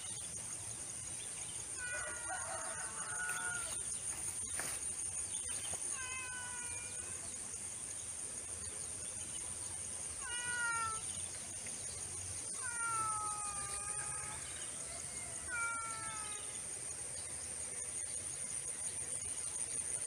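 Domestic tabby cat meowing five times, drawn-out calls that fall in pitch, over a steady high-pitched insect trill.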